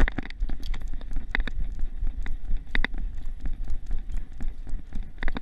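Camera mount on a running dog, picking up its paws hitting the ground in quick, uneven strides. Under them is a steady low rumble, with many sharp clicks and knocks from the camera and harness being jolted.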